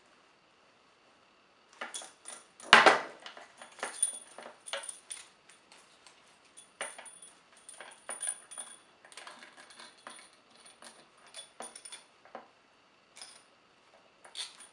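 Steel dog choke chain and a steel ring clinking and jangling as they are handled, while the ring is worked through the chain's end link and pressed closed. Short metal clicks start about two seconds in, with the loudest clatter a second later, then lighter clinks on and off, and a few more near the end.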